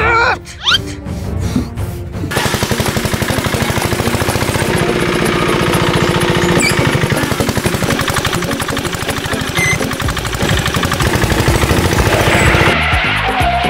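Engine of a motorcycle-fronted three-wheel cargo cart running with a rapid, even chugging as it drives along loaded, from about two seconds in until near the end; a short shout comes just before it.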